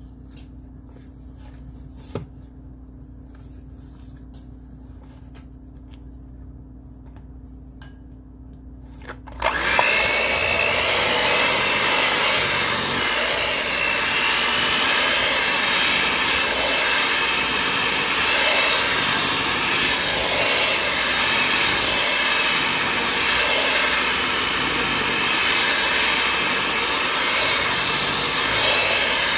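Electric mixer switched on about nine seconds in and running steadily. Before it starts there is a low hum with a few light clicks.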